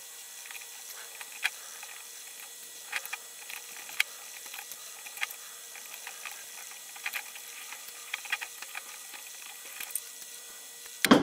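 Irregular light metallic clicks and ticks as hands work the sheet-metal cooling fins and mounting bracket of a microwave magnetron, with a louder clatter at the very end.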